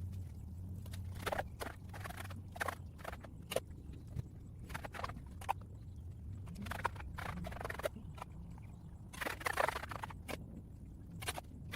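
Shovel working in wet mud and sediment: irregular scrapes and thuds, about one or two a second, over a faint steady low hum.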